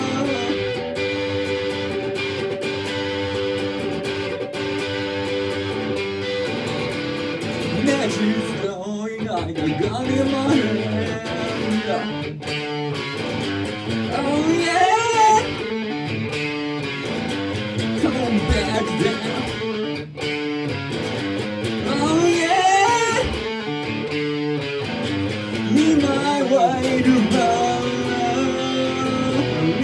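Electric guitar played through an amplifier with a man singing over it: steady held chords for the first several seconds, then a busier passage with the voice rising and falling.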